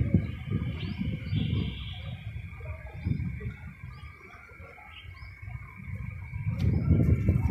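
Outdoor ambience: faint bird chirps over an uneven low rumble that fades in the middle and swells again near the end.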